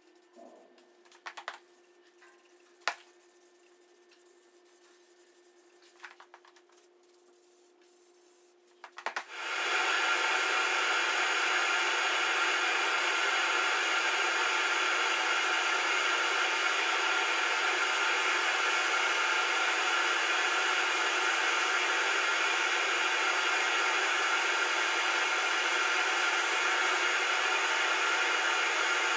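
A few light clicks, then about nine seconds in a steady hiss of an aerosol spray-paint can spraying starts abruptly and keeps going.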